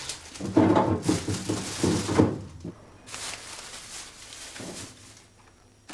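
Knocks and handling noises of things being moved about in an open refrigerator, loudest and busiest in the first two seconds, then a couple of fainter knocks.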